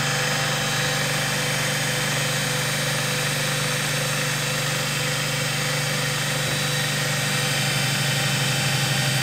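Universal motor running steadily on an SCR phase-control speed controller: a constant hum with several higher steady tones above it, unchanging in speed.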